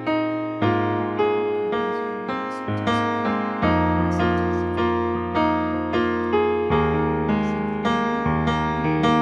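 Solo piano music: chords struck about once a second, each note fading, with the bass note changing every few seconds.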